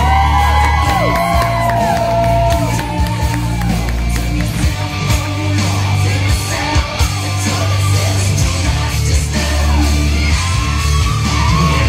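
Loud backing music with a heavy, steady bass. Audience members whoop and yell over it at the start and again near the end.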